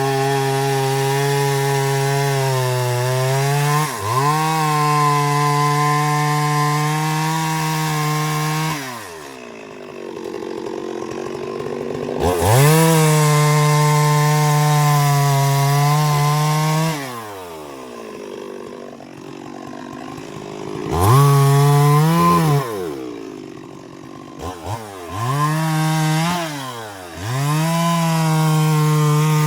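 Two-stroke chainsaw cutting wood, held at full throttle for several seconds at a time with brief dips in pitch, dropping back to idle twice, then revving in shorter bursts near the end.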